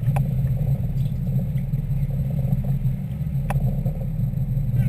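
Sportfishing boat's engines running, a steady low drone, with two sharp clicks, one near the start and one about three and a half seconds in.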